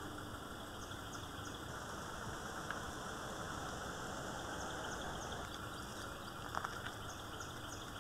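Steady outdoor background noise, with a few faint high chirps in quick groups of three and a brief soft knock near the end.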